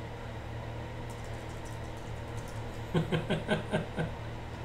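Steady low room hum. About three seconds in comes a short run of quick, quiet voiced syllables from a man.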